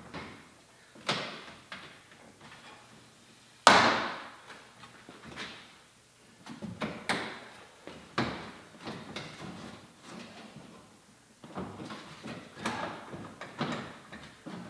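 Toyota FJ Cruiser's plastic front grille being pulled and worked loose from its clips: a series of hard plastic clunks and knocks, the loudest about four seconds in.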